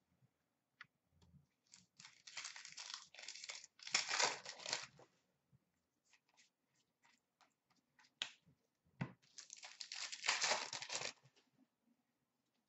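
Upper Deck hockey card pack wrappers being torn open and crinkled by hand, in two spells of tearing: one about two seconds in lasting some three seconds, another from about nine and a half seconds in. Light clicks and taps come between them, with a soft knock just before the second spell.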